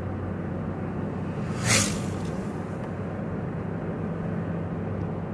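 A vehicle's engine and road noise running as a steady drone while driving, with one brief loud hiss about a second and a half in.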